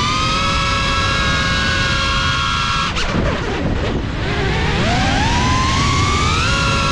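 GEPRC Cinelog 35 FPV quadcopter's brushless motors whining, several pitches at once. About three seconds in the whine breaks off sharply and wavers and dips for a second or so. It then climbs steadily in pitch and settles into a steady whine again.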